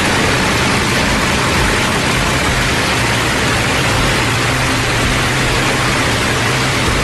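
Avro Lancaster's four Rolls-Royce Merlin V12 engines running with propellers turning: a steady, loud engine drone under the rushing hiss of the propeller wash.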